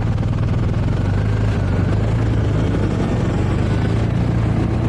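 Motorcycle engine running at a steady pitch, its low hum over a steady haze of road noise.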